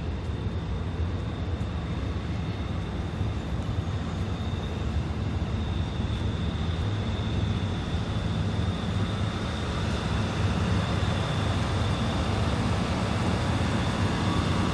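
Enclosed generator set's engine running steadily: a low, even hum with a thin steady high whine above it, growing a little louder in the second half.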